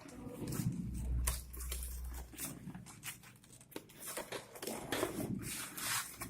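Packaging being handled and opened: irregular rustling, crinkling and small clicks of a box and its wrapping.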